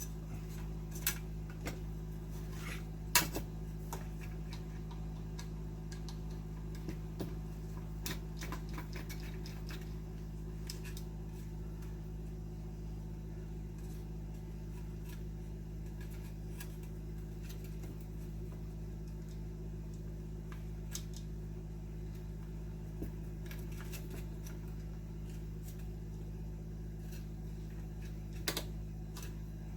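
Scattered small clicks and taps of wires and small parts being handled while a PID controller is wired, the sharpest about three seconds in and another near the end, over a steady low hum.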